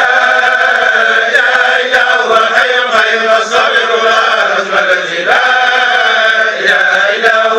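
A group of men chanting Islamic dhikr together in unison, a loud, continuous chant of many voices that dips briefly about five seconds in.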